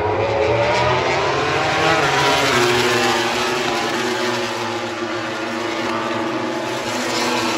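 Racing motorcycle engines at high revs as bikes go by on the circuit. The engine note rises in the first second, then several engines hold a steady high pitch.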